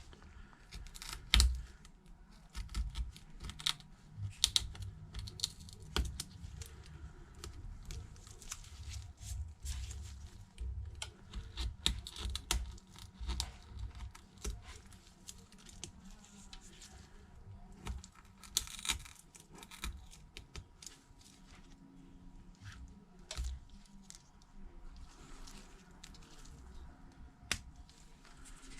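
A metal blade scraping leftover shards of broken screen glass off a phone's frame: irregular sharp clicks and scratchy scrapes.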